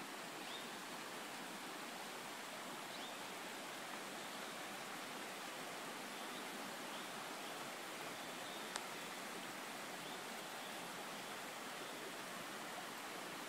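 Steady rushing of a small forest stream flowing over rocks, an even hiss with no change. A single faint click about nine seconds in.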